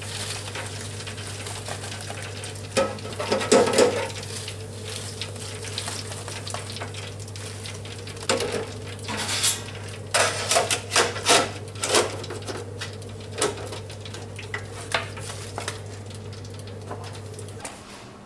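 Electric deep fryer with hot oil sizzling while its steel wire basket and lid clatter and knock against the fryer: a cluster of knocks a few seconds in and a quick run of clanks around ten to twelve seconds in. A steady low hum underlies it and stops near the end.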